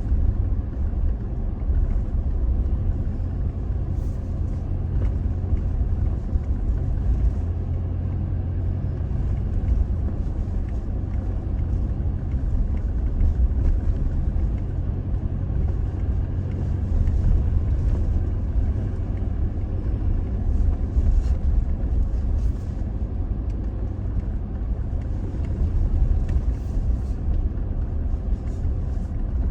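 Toyota Tacoma pickup driving slowly on an unpaved off-road trail: a steady low rumble of engine and tyres, with no change in pace.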